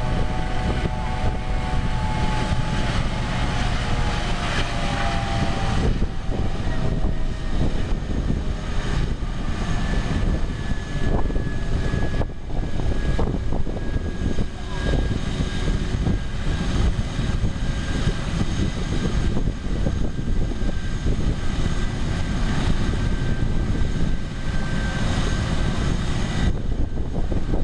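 Airbus AS365 N3 Dauphin helicopter running on the ground: its twin Turbomeca Arriel 2C turboshaft engines drive the turning main rotor and fenestron tail rotor in a steady, loud rush of turbine and rotor noise, with faint whines that slowly fall in pitch. This is an engine ground run after preventive maintenance.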